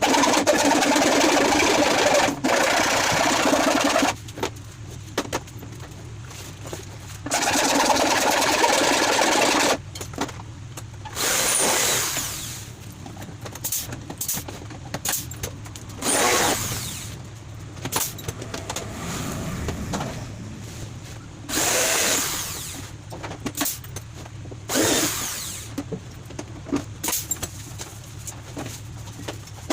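Power drill running in bursts of one to four seconds, a few of them winding down as the trigger is let go, with small clicks and knocks between the bursts.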